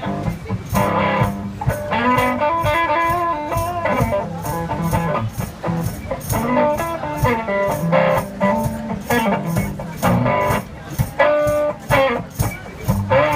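One-man band playing an instrumental blues: guitar lines over a steady, even percussion beat.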